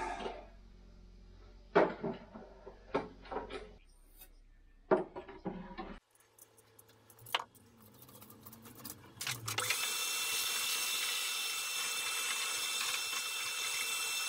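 Scattered knocks and clicks of tubing and tools being handled. About two-thirds of the way in, a loud steady whirring hiss starts up, a small power tool running.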